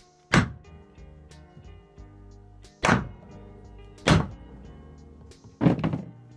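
Four heavy hammer blows on a wooden block, driving a thin steel disc down over the round face of a ball-peen hammer held in a vise to dish it into a concave end cap; the last blow has a short rattle after it. Background music plays underneath.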